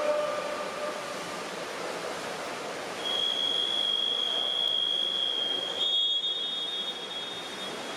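Steady pool-hall noise. About three seconds in, a long, high, steady signal tone starts and holds for about five seconds, with a second, slightly higher tone joining near the end.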